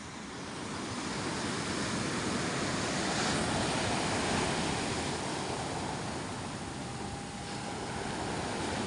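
Sea waves washing and wind noise on the microphone, a steady rushing noise that swells a little about a second in.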